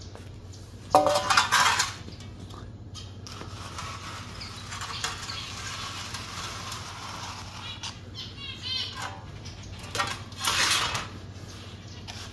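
A water dish clattering as it is handled and set down, in two loud short bouts about a second in and again near the end, with a few bird chirps between them.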